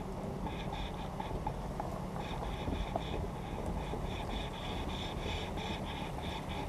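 A pickup truck eases through a shallow creek crossing, heard as a steady low rumble from a hood-mounted camera. Over it, from about two seconds in until near the end, comes a rhythmic pulsing animal call, about four pulses a second.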